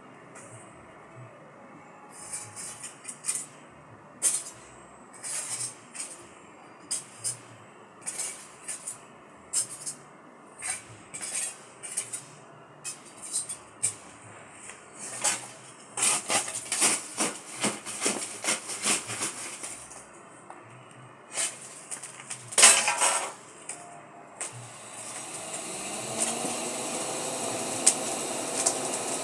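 Irregular metallic clinks and knocks, with a quicker run of strikes partway through. Near the end a machine hum rises steadily in pitch as it spins up.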